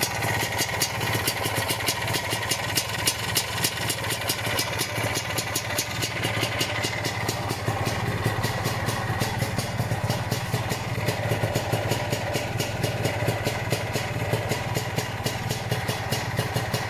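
Lambretta Series 2 SS225 two-stroke scooter engine idling steadily, with a fast, even metallic clicking over the running. The owner takes the clicking for a worn big-end or little-end bearing, possibly a faulty little-end bearing fitted recently.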